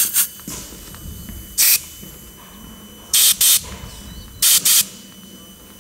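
Air let out of a motorcycle's front tyre through the valve in about six short hissing bursts, some in quick pairs. The pressure is being lowered from 2.37 bar toward 2.15 bar cold, for the Bridgestone RS11 road tyre.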